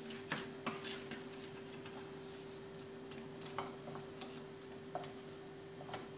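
Wooden spoons tapping and scraping against a pot as pastries are dipped in hot honey: a few light, irregular clicks over a steady faint hum.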